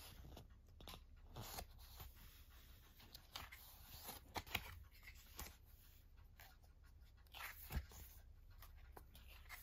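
Faint rustling and soft ticks of glossy paper pages being turned by hand in a booklet, a few brief clicks scattered through, the clearest near the end.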